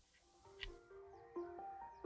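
One muffled keystroke from a silent mechanical keyboard switch, then background music: a melody of held notes stepping in pitch that starts about half a second in.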